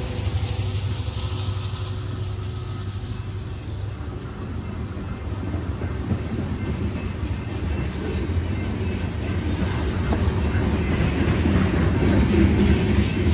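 BNSF freight train rolling past with a steady low rumble, its wheels clicking over the rail joints. It grows louder over the last few seconds.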